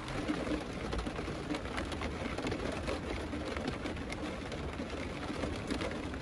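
Rain falling on the roof of a camper van, heard from inside: a steady hiss dotted with many small ticks of drops.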